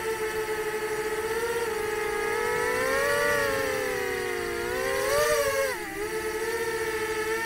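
Nazgul 5-inch FPV quadcopter's brushless motors and two-blade propellers whining, the pitch rising around three seconds in and again about five seconds in with throttle, then dropping sharply near six seconds before settling back to a steady cruise.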